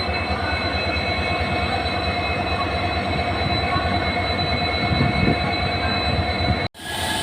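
EMD two-stroke 16-cylinder diesel engine of an Indian Railways WDP-4D locomotive running steadily after start-up, with a low pulsing hum and a steady whine. Near the end the sound cuts out abruptly for an instant and then resumes.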